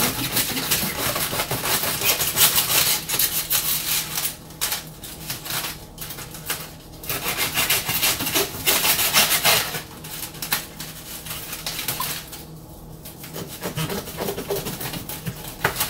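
Kitchen knife sawing through flower stems on crinkly foil wrapping: repeated rasping, scraping strokes with the foil rustling, broken by a few short pauses.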